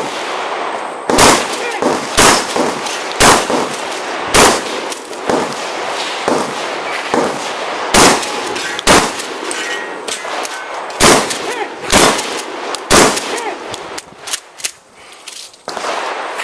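12-gauge shotgun fired nine times in three quick strings at about one shot a second: four shots, a pause, two, a pause, then three.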